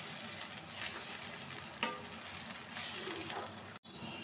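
Wooden spatula stirring and scraping chopped radish and radish leaves as they fry in oil in a kadhai, with a soft steady sizzle under the scraping strokes; the greens are being roasted on a slow flame. A short ringing clink about two seconds in, and the sound cuts out for an instant near the end.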